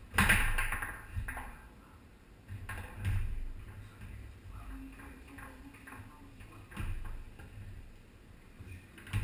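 Foosball being played on a Tornado table: hard plastic ball and the men on the rods striking with sharp knocks and a short ringing tail. The loudest hit comes right at the start, with a few more spread through the rest.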